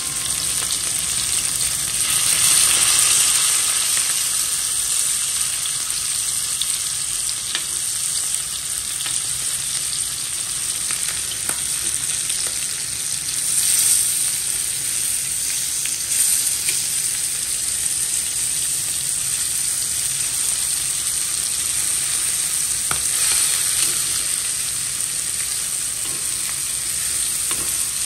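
Masala-coated taad fish pieces sizzling steadily in hot oil on a tawa, with a steel spatula scraping and clicking against the pan now and then as the pieces are turned.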